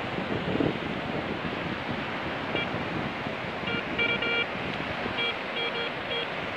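Surf washing on the shore with wind on the microphone. From about two and a half seconds in, a Garrett Ace 150 metal detector gives a run of short, same-pitched beeps, some in quick pairs and triples, as its coil is passed over the hole: the detector signalling a buried metal target in the wet sand.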